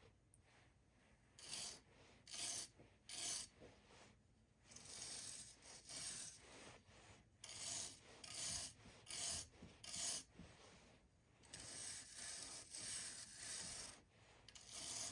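Short rasping strokes of hand filing or scraping on small metal parts, about one or two a second in uneven runs, pausing about four seconds in and running closer together near the end.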